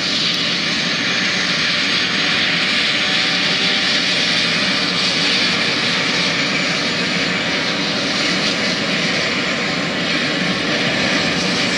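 Helicopter turbine engine running on the ground, a steady loud whine and hiss.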